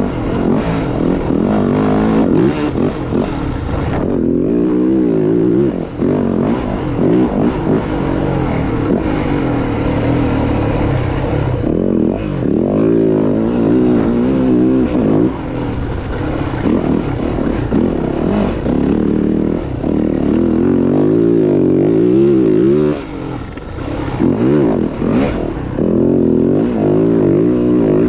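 Dirt bike engine revving up and down as it is ridden, its pitch rising and falling over and over.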